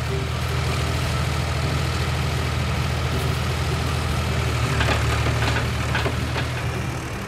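Engine idling steadily with a low rumble, with a few light clicks about five to six seconds in.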